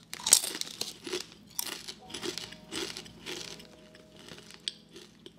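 Plastic chip bag crinkling as a hand rummages in it, mixed with close crunching and chewing of chips, in a string of short, uneven bursts.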